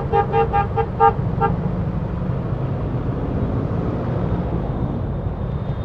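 A vehicle horn toots in a quick run of about seven short beeps over the first second and a half, then gives way to a steady low road rumble from riding in traffic.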